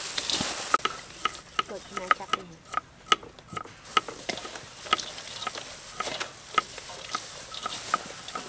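Shredded green papaya rustling as gloved hands toss it in a stainless steel bowl, over a run of light, evenly spaced knife taps on a wooden chopping board, about three a second, from shallots being sliced.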